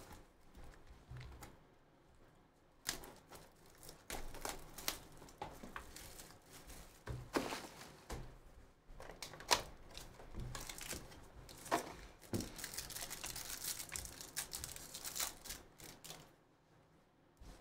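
Hands unwrapping and opening a Panini Absolute football card box and tearing into a foil card pack: a run of crinkling, tearing and sharp cardboard clicks starting about three seconds in, densest near the end.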